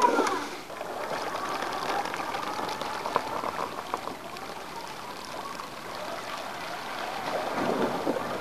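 Water splashing and churning as the wheels of a heavy radio-controlled four-wheel robot drive through a shallow pond. The faint whine of its electric wheelchair motors falls away in the first half second and rises again near the end.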